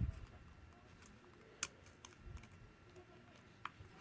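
A few faint, sparse clicks and taps of small tools and parts being handled during a smartphone teardown: a soft thump at the start, then two sharp clicks about two seconds apart.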